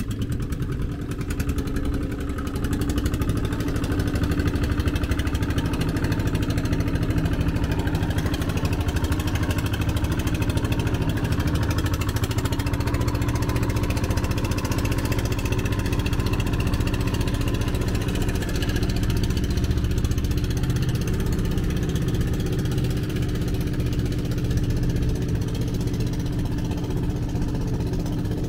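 Engine of a small passenger ferry boat running steadily. It grows louder over the first few seconds, then holds an even, unchanging note.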